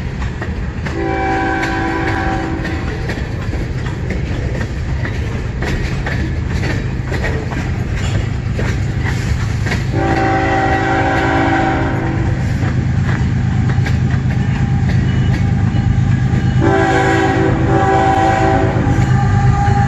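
Freight train cars rolling past with a steady rumble and wheel clatter, while an approaching CN freight locomotive sounds its multi-note air horn in three separate blasts, about a second in, at the middle and near the end, the last one the longest.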